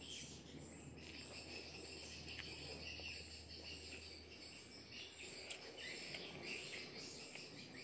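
A steady, high-pitched chorus of insects chirring, with a few faint clicks underneath.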